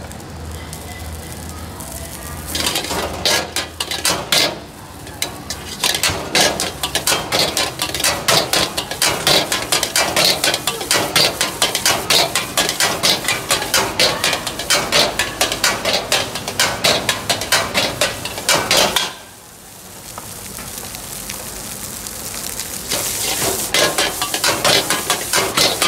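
A metal ladle strikes and scrapes a carbon-steel wok in quick rhythmic strokes as fried rice is stir-fried over a gas flame, with sizzling underneath. About three-quarters through, the strokes stop for a few seconds, leaving a quieter hiss, then start again.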